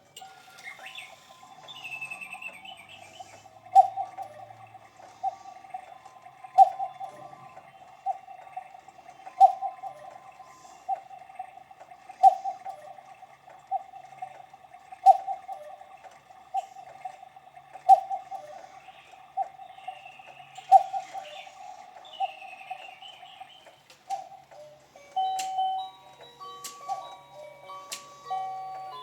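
Battery-operated Engstler chalet cuckoo clock running its hourly routine: an evenly repeating call about every second and a half, every other one louder, with recorded birdsong chirps. About 25 seconds in, a tune begins to play.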